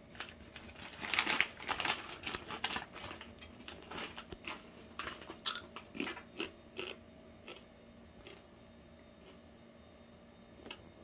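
Crispy spicy chicharon (pork rinds) crunching and crackling as it is crumbled by hand. The crackles come thick for the first several seconds, then thin out to a few scattered clicks.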